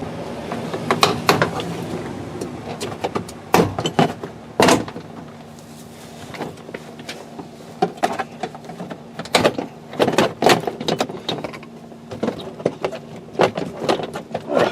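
Interior door trim panel of a 2001 Chevy pickup being pried off the door: plastic retaining clips popping loose and the panel knocking against the door, in scattered sharp clicks and snaps.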